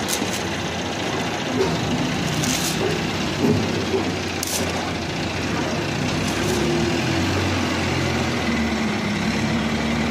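A vehicle engine running steadily, its pitch wavering slightly, with two brief sharp sounds about two seconds apart.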